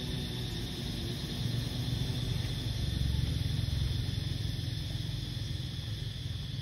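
A low rumble that swells for a few seconds in the middle, over a steady high hum.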